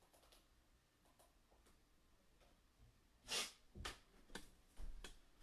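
Near silence, then four short, faint clicks or rustles in the last two seconds.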